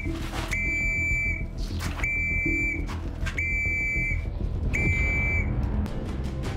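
High electronic beep tones, each held for most of a second and repeated about every second and a half, over a low soundtrack drone, with swooshing hits between the beeps. The beeps stop about a second before the end.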